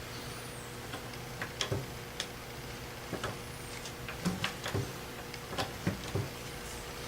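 Irregular sharp clicks and knocks of hand work with tools, about a dozen spread unevenly, over a steady hum.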